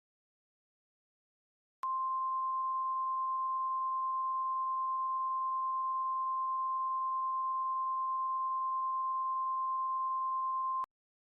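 NOAA Weather Radio warning alarm tone: a single pure tone near 1050 Hz, held steady for about nine seconds and cutting off sharply. It is the alert tone that signals a warning broadcast is about to follow.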